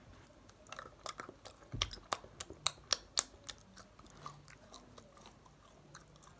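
Close-up chewing and biting of a teddy-bear-shaped advent calendar chocolate: a quick run of sharp crunches over the first three seconds or so, then softer, sparser chewing.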